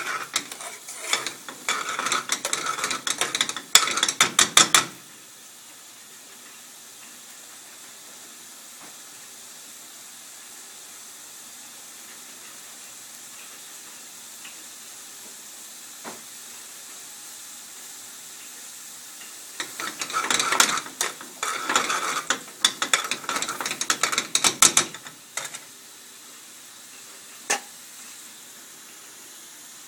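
Metal ladle stirring and scraping a thick bhuna prawn sauce in a steel frying pan on a gas burner, in two spells of a few seconds each, with a steady hiss in between. The sauce is cooked down very dry, as a bhuna should be.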